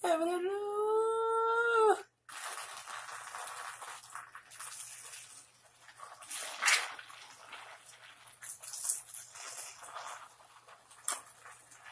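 A person's long, high-pitched whining cry that rises and then holds for about two seconds. It is followed by quieter, irregular trickling and splattering as chocolate drink is squeezed from a carton onto wet hair.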